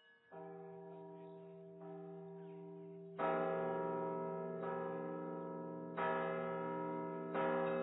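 Church bells ringing, one stroke about every one and a half seconds, each ringing on under the next. The first two strokes are softer, and they grow louder from about three seconds in.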